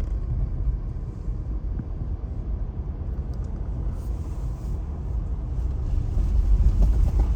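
A car driving over snow- and ice-packed road: a steady low rumble of tyre and road noise, swelling a little near the end.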